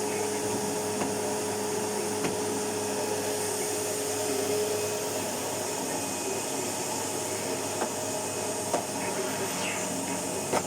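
Vacuum cleaner motor running steadily, with a faint steady tone that fades out about halfway through and a few faint clicks.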